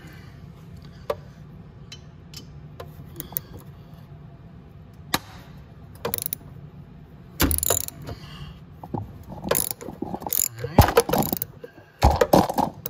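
Socket ratchet clicking and tools knocking as 12 mm exhaust manifold bolts are worked with a ratchet and long extension: scattered clicks at first, then denser, louder clatter and knocks over the last five seconds.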